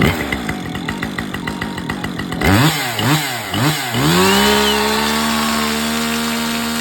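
Husqvarna 550XP G Mark II two-stroke chainsaw idling unevenly, then blipped three times in quick succession. It is then throttled up to a high, steady rev and held there for the last few seconds.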